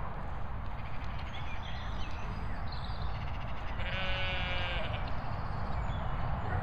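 A single drawn-out animal call lasting about a second, about four seconds in, over a steady low rumble of wind on the microphone. Faint bird chirps come before it.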